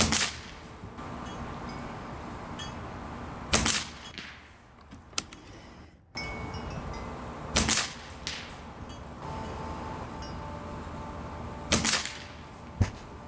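Air Arms TX200 MK3 spring-piston air rifle firing four shots about four seconds apart, each a sharp crack with a brief ring after it. A smaller sharp knock follows just after the last shot.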